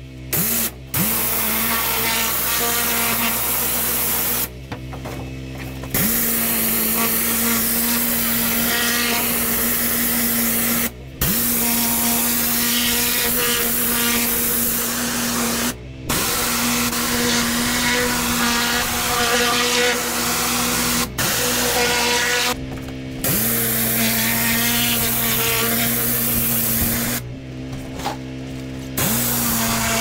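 Pressure washer spraying a patio under a steady motor drone. The spray cuts out several times as the trigger is let go, and each time it is squeezed again the motor's pitch dips and climbs back as it takes up the load.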